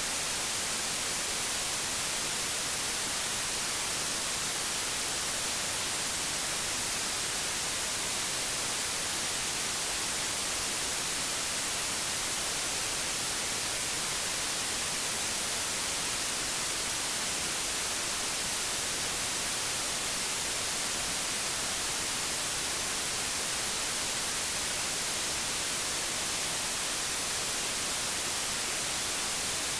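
Analogue television static: a steady, even hiss weighted toward the high end, with no change throughout.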